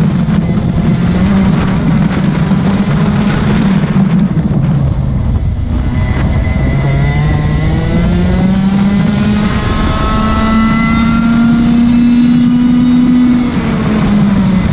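Racing kart engine heard from on board under load: the revs sag about five seconds in, then climb steadily for about seven seconds as the kart accelerates, with a brief lift near the end before picking up again.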